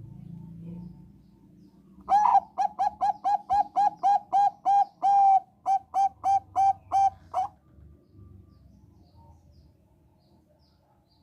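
Zebra dove (Thai 'perkutut bangkok') singing: a quick, even run of short clipped coos, about three a second, lasting about five seconds from about two seconds in, with one slightly longer note midway.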